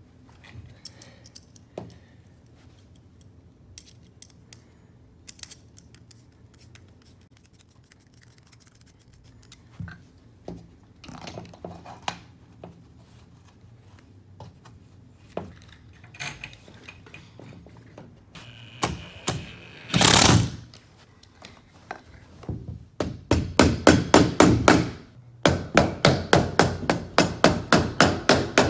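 Rubber mallet tapping an aluminium sliding-door frame back onto its glass panel, in quick runs of several blows a second over the last few seconds. Before that, only light clicks and knocks of handling.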